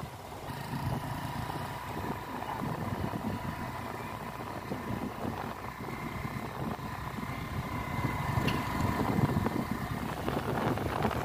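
Engine and road noise of a small vehicle being ridden along a road, a steady low rumble with a thin steady whine over it, and wind buffeting the microphone.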